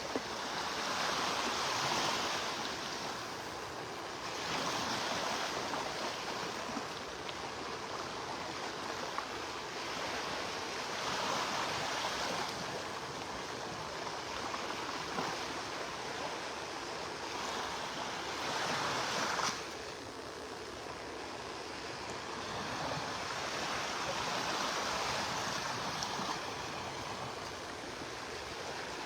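Surf breaking and washing up the beach, a steady rush that swells every few seconds as each wave comes in.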